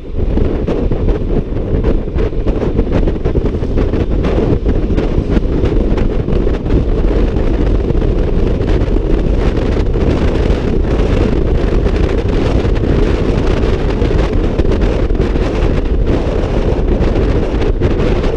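Steady wind rush buffeting the microphone of a Honda ADV 150 scooter at riding speed, with the scooter's engine and road noise underneath.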